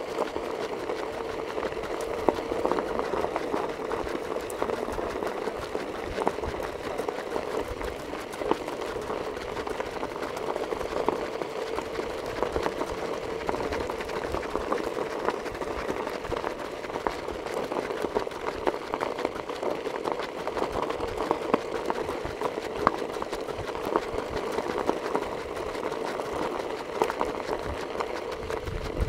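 A vehicle's engine running steadily at low speed with a constant hum, over a dense crackle of tyres on a gravel road.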